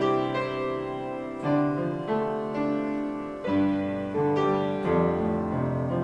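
Slow instrumental piano music: held chords, with a new chord coming in every second or two.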